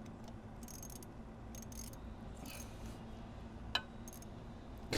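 Faint clicks and light scraping of a hand tool working a bolt on a motorcycle engine, over a steady low hum, with one sharper metallic click about three-quarters of the way through.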